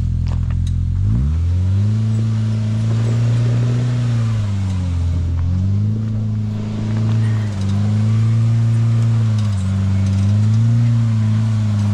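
Off-road vehicle engine picking up from a low idle about a second in, then running hard under throttle. Its pitch dips briefly and climbs back about four times as the throttle eases and reopens.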